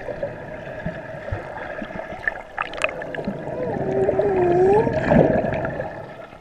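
Swimming-pool water heard underwater: muffled sloshing and bubbling as people move through it, with a wavering, voice-like hum about three and a half to five seconds in.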